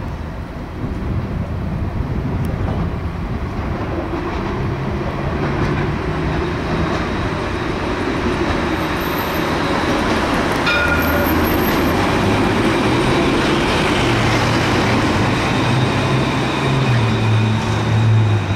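City tram running along street track, its rolling and motor noise growing steadily louder as it approaches, with a low hum strengthening over the last few seconds.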